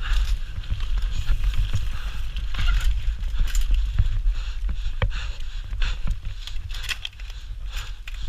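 Mountain bike riding fast down a dirt forest trail: a steady rumble of wind on the microphone, with the bike rattling over the bumps and sharp knocks at several points.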